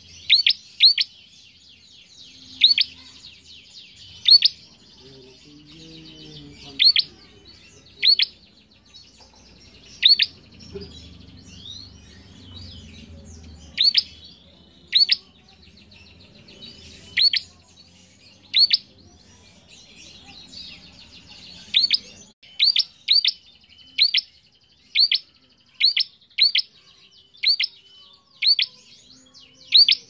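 Caged prenjak calling vigorously: loud, sharp, high chip notes about every second or so, sometimes two or three in quick succession, over faint high bird chatter.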